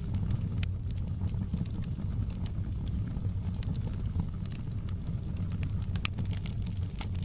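Wood fire burning with a steady low rumble and irregular sharp crackles and pops.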